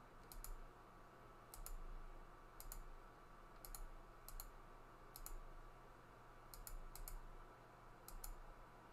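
Faint computer mouse clicks, many in quick pairs, coming roughly once a second as objects are selected and checkboxes ticked in software.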